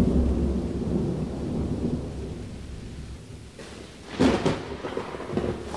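Thunder: a deep rumble that swells at once and fades over a few seconds, then a sharper crack about four seconds in, with smaller crackles trailing after.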